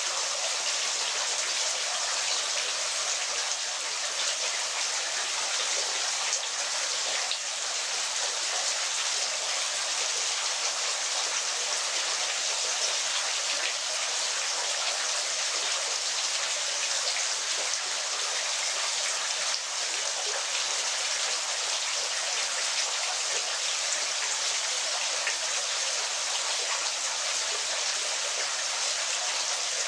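Waterfall: a steady, unbroken rush of falling water, a bright splashing hiss with no deep rumble.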